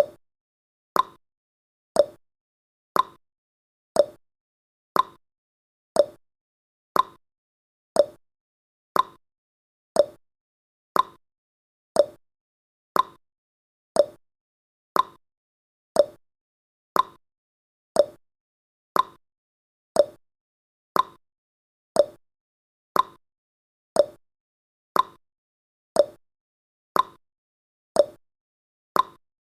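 Clock tick-tock sound effect marking each second: one short, sharp tick a second, alternating between a higher and a lower tick.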